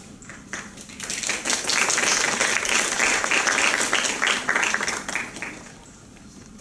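Audience applauding: a few scattered claps, then full clapping from about a second in that fades out after about five seconds.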